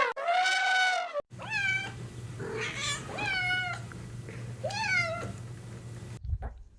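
A goat's bleat trailing off, then after a cut a cat meowing about four times, each meow rising and falling in pitch, over a low steady hum.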